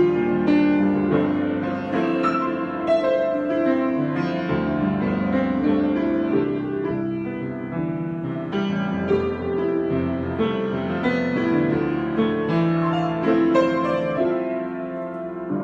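Solo piano improvisation: notes and chords struck one after another without a break, each ringing on into the next.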